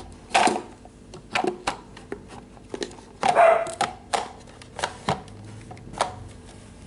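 A dog barking, loudest about halfway through, among short clicks and knocks of plastic salad-maker parts being handled.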